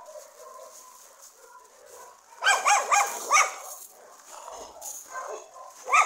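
Dogs barking and yipping in rough play: a quick run of sharp barks about two and a half seconds in, then a single bark near the end.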